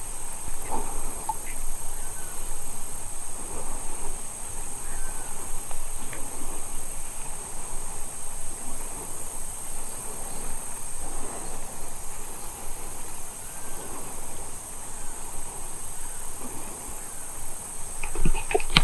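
Steady high-pitched insect chorus buzzing without a break, with a few faint chirps scattered through it and some clicks near the end.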